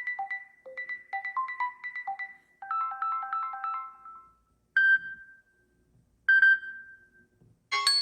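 Samsung Galaxy ringtones playing: a quick, repeating synthesized melody of short notes, then a fuller phrase. After that come two single ringing chimes about a second and a half apart, and near the end a busier new tune begins.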